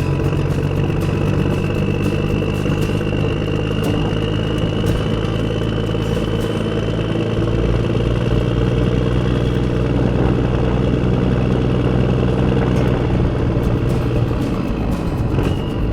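Huina remote-control excavator working: a steady engine-like hum under a high motor whine that slowly rises in pitch and drops near the end, with scattered clicks and clatter.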